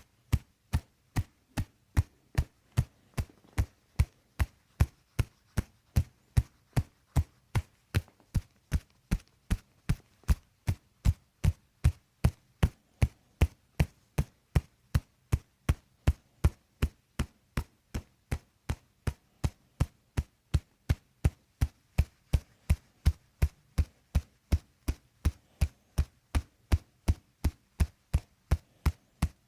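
Steady, evenly spaced tapping, about two and a half dull knocks a second, keeping an unbroken machine-like rhythm.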